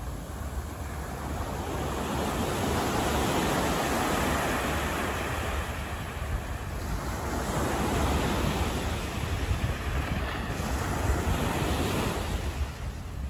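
Outdoor city ambience: a steady rushing noise with no distinct tones, swelling louder about four seconds in and again over several seconds near the middle to late part, then easing off.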